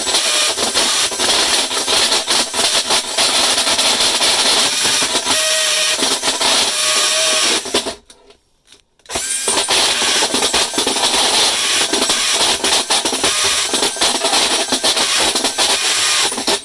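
Cordless drill driver spinning a Panasonic universal hole saw as it cuts through gypsum board and the light-gauge steel stud behind it. The cutting stops for about a second near the middle, then starts again.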